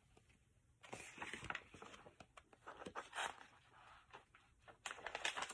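Faint rustling of a paperback book's pages being flipped and handled, in short scattered rustles with light taps.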